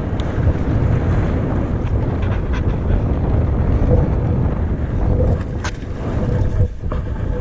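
Strong wind buffeting the microphone: a loud, steady, rumbling rush, with a few sharp clicks.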